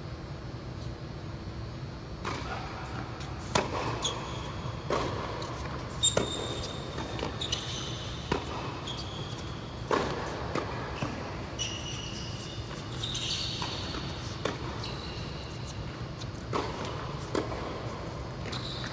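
Tennis balls struck by rackets and bouncing on an indoor hard court, at irregular intervals a second or so apart, with short sneaker squeaks on the court surface, echoing in a large hall.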